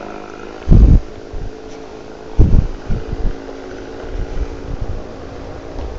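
Wind buffeting the microphone in low thumps, a strong one about a second in and another near two and a half seconds, over a steady mechanical hum.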